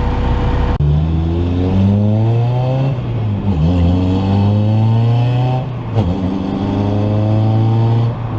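1999 Acura Integra GSR's 1.8-litre DOHC VTEC four-cylinder accelerating hard through the gears, the engine note climbing in pitch, dropping briefly at each of the upshifts about three and six seconds in, then climbing again.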